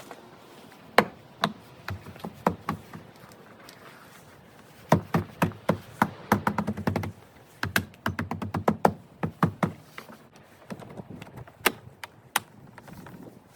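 An irregular run of sharp clicks and knocks from hand work on the parts of a car door: a few single knocks, then two dense clusters of rapid clicks and taps, then a couple more near the end.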